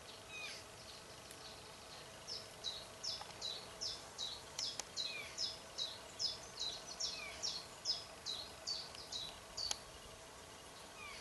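A small woodland songbird singing a long run of about twenty matching high-pitched notes, each sweeping downward, at about three a second. The song starts about two seconds in and stops shortly before the end.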